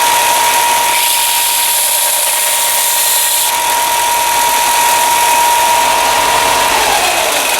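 Electric belt sander running with a steady whine while a forged steel knife blade is ground on the belt, the grinding hiss louder for a couple of seconds about a second in. Near the end the motor is switched off and its whine drops in pitch as it spins down.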